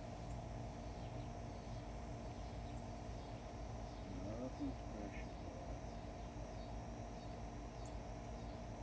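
Outdoor ambience with a steady insect chorus of crickets under a low rumble. About halfway through there is a brief, faint rising-and-falling sound.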